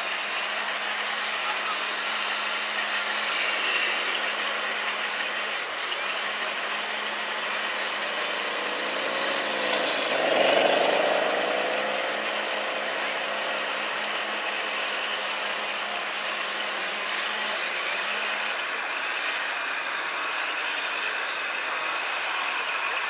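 Scale RC trucks and construction machines running, a steady mechanical hum. About ten seconds in, a pitched engine-like sound dips and then rises, the loudest part.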